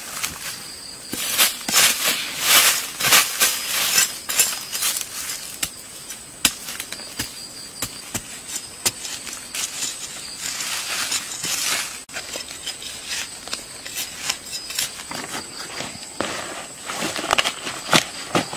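Scraping and crunching of dry soil and leaf litter as a hole is dug by hand with a small tool, with dry leaves rustling and a faint steady high insect whine underneath.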